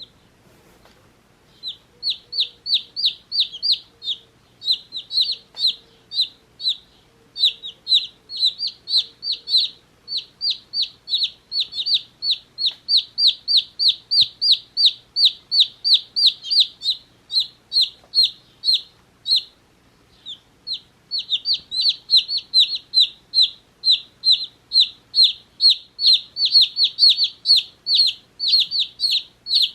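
Day-old chicks peeping: a rapid run of high chirps, about four a second, each falling in pitch. They start about a second and a half in and break off briefly about two-thirds of the way through.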